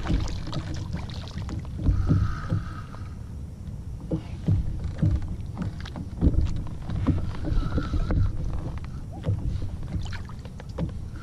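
Water slapping and knocking against the hull of a small fishing boat, uneven low splashes and bumps with no steady engine.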